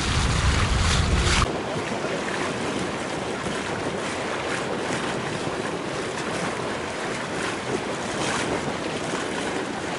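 Wind buffeting the microphone over choppy sea. About a second and a half in it cuts to a quieter, steady hiss of wind and waves.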